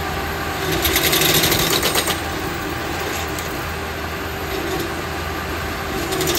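Rail spike driver driving a track spike into a tie: a rapid burst of hammering lasting about a second and a half, over the steady running of the machine's engine. A second burst of hammering starts near the end.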